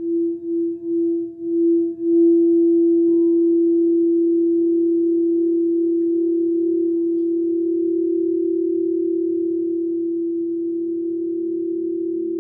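A singing bowl sounding one steady, pure tone, wavering in quick pulses for the first two seconds, then ringing on steadily and slowly fading.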